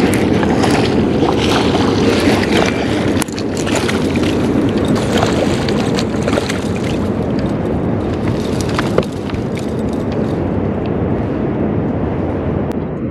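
Steady wind noise on the microphone, with scattered light clicks and knocks from handling fishing gear in the boat.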